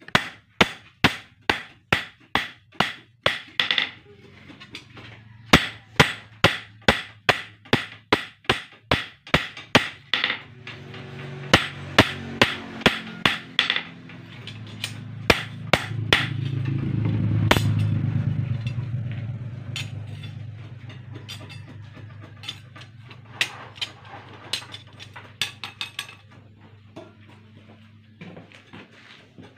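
Ball-peen hammer striking a steel knife blade cut from a motorcycle brake disc on a steel post anvil: steady metallic blows about two or three a second, with short pauses, then a few scattered strikes a little after the middle. A low rumble swells and fades around the middle.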